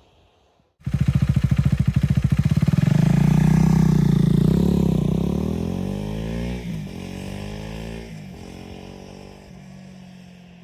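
KTM 390 Duke single-cylinder engine breathing through a LeoVince GP Corsa Evo slip-on exhaust with no dB-killer baffle. It pulls away from a stop and revs up hard, shifts up twice with a dip in pitch each time, and fades as the bike rides off.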